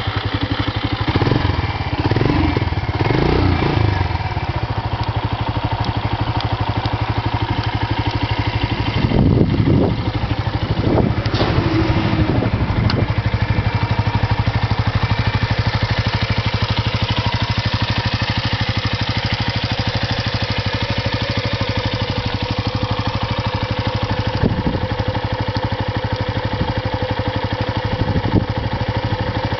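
Suzuki Volty's single-cylinder four-stroke engine starting up, blipped a few times in the first seconds and again about ten seconds in, then settling into a steady idle.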